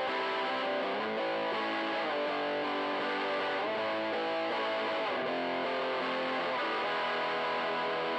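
Electric guitar playing overdriven chords through a Joyo crunch distortion pedal into a Fender tweed Deluxe 5E3-style tube amp. The chords ring out and change about every second.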